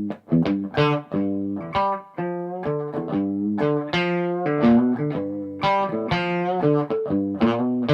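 Gibson Custom SG electric guitar played before its setup: a run of picked single notes and chords, about two or three new notes a second, each ringing on and fading.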